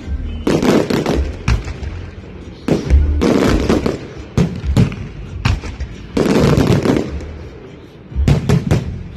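Temple-procession fireworks and firecrackers going off: four dense crackling volleys of about a second each, with single sharp bangs between them.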